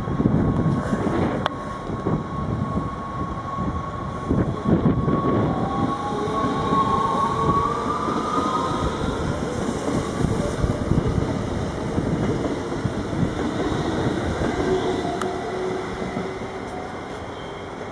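Six-car NS Sprinter Lighttrain (SLT) electric multiple unit running along a station platform. A steady rumble of wheels on rail is broken by clicks over the rail joints, under an electric traction whine that rises in pitch midway.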